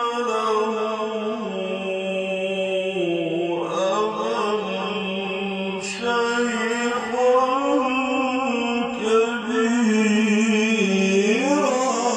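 A man's voice in melodic Quran recitation (tajwid), holding long drawn-out notes with ornamented turns in pitch.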